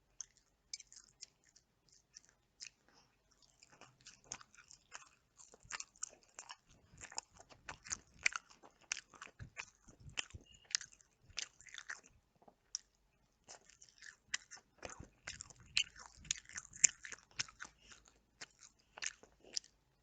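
Close-miked chewing and biting of Nando's chicken: a steady run of quick, moist crackling clicks, with a short lull after about twelve seconds.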